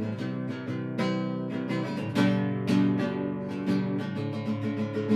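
Acoustic guitar strumming chords in a steady rhythm: an instrumental passage of a folk song between sung lines.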